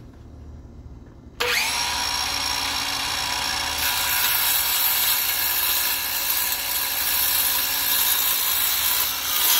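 Milwaukee cordless circular saw with a 6.5-inch, 24-tooth Spyder Tarantula framing blade starts suddenly about a second and a half in and spins up with a short rising whine. A couple of seconds later the blade bites into MDF and the saw runs steadily under load through the cut.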